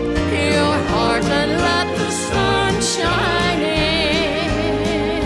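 Instrumental opening of a country gospel song: a melody line with vibrato over a steady bass and chordal accompaniment.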